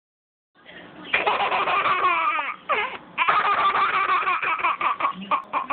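Young child laughing hard: one long laugh, a short break near three seconds in, then more laughter breaking into quick separate bursts near the end.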